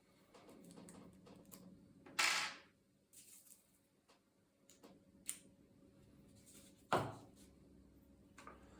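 Scattered clicks and knocks of laptop parts and tools being handled during disassembly, with a short loud rushing scrape about two seconds in and a dull thump about seven seconds in.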